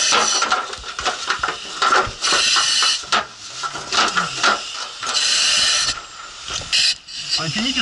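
Firefighter breathing through a breathing-apparatus mask, with a hiss at each breath about every three seconds. Scattered knocks and rustling come from moving through a cluttered room.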